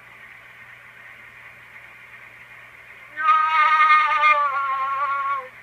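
Edison Standard phonograph playing back a home-made acoustic horn recording. Steady surface hiss and hum, then about three seconds in a recorded singing voice holds a wavering note that slides down in pitch before it stops.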